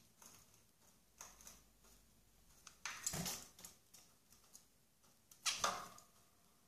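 Small cage birds moving about in a wire birdcage: two brief rustling flutters, about two and a half seconds apart, over a few fainter scuffles.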